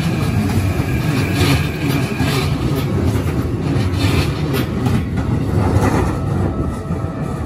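Red Keikyu electric commuter trains passing close by, wheels running over the rails with a steady rumble and several sharp clacks from the rail joints.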